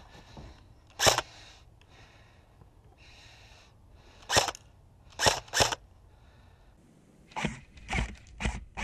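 Airsoft rifle firing single shots at irregular intervals: about seven sharp cracks, two of them fired close together in the middle and three more quickly near the end.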